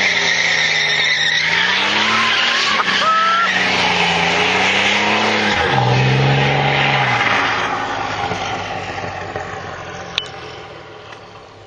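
A V8 car doing a burnout: the engine revs up and down at high revs over the screech of spinning tyres. After about seven seconds the sound fades away.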